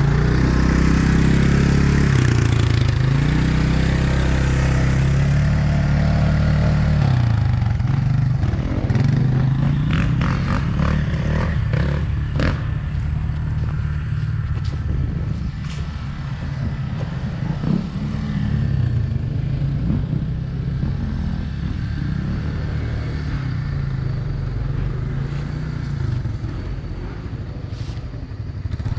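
ATV engine running close by, revving with rising and falling pitch for the first several seconds, then settling to a lower, steadier run. A few clattering knocks come around the middle.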